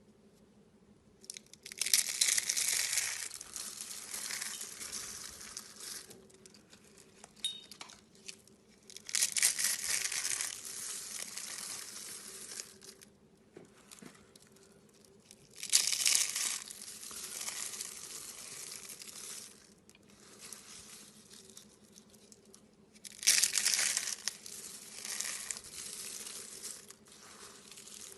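Slime being squeezed and stretched by hand, giving crackling, crinkly bursts. There are four bursts, each starting sharply and fading out over a few seconds.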